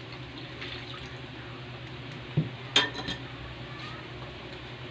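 Broth being poured from a pot into a metal wok, then a metal spatula clinking against the wok three times, about two and a half to three seconds in, as the contents are stirred.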